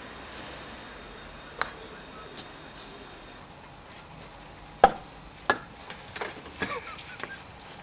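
A handful of short, sharp clicks and knocks over a faint steady hiss. They are scattered at first, the loudest comes about five seconds in, and a quick run of smaller ones follows.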